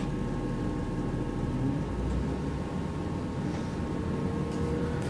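London Midland diesel multiple unit running along the line, heard from inside the carriage by the door: a steady rumble with a constant hum, and a faint tone rising slowly near the end.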